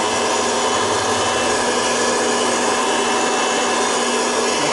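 Proctor-Silex hot-air popcorn popper running: the steady whir of its blower with the kernels swirling in the heating chamber, not yet popping.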